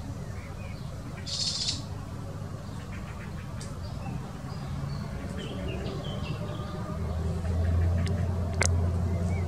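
Outdoor background noise: a low rumble with short, faint high chirps scattered through it, like distant birds, and a brief hiss about a second and a half in. A low hum grows louder near the end.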